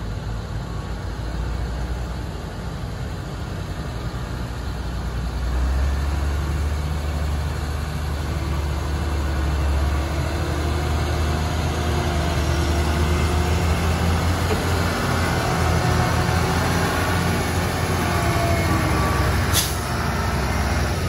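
Heavy diesel engine running steadily, growing louder about six seconds in and holding at that level, with one short, sharp burst near the end.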